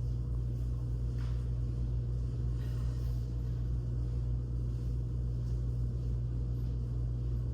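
Steady low-pitched hum that does not change, with a few faint soft knocks above it.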